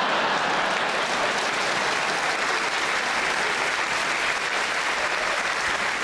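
Theatre audience applauding steadily.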